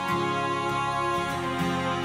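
Background music: sustained instrumental notes that shift in pitch every half second or so.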